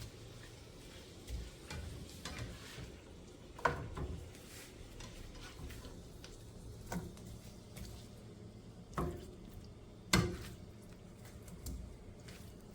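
A utensil stirring chopped steak and onions in a hot pan, knocking and scraping against the pan every second or two, the loudest knock about ten seconds in, over a faint frying sizzle.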